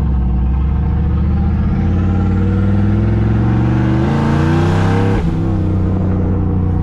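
Turbocharged pickup truck engine heard from inside the cab, its revs climbing steadily under hard acceleration for about three seconds, then dropping abruptly about five seconds in. This is a tuning pull into boost, run to check the added fuel enrichment.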